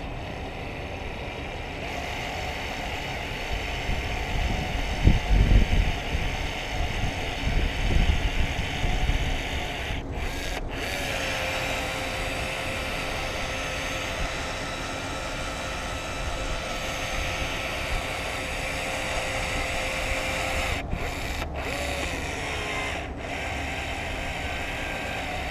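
Cordless urethane applicator gun running steadily for about ten seconds as it lays a bead of Sika windshield urethane, its motor note rising as it starts and dropping as it stops. A few low knocks come before it.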